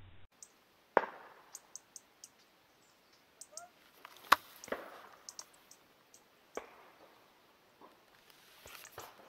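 A few sharp clicks and knocks, the loudest about four seconds in, with faint high ticks between: handling and movement noise around a shotgun.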